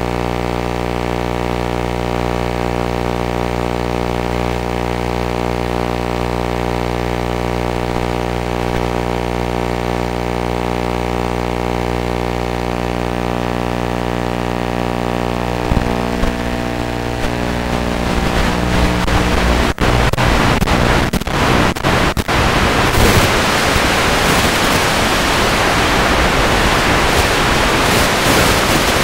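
Audio from an analog FPV video link: a steady electronic buzz of several even tones that breaks up about 16 seconds in. By about 19 seconds it turns to loud static hiss with brief dropouts, as the video signal breaks up.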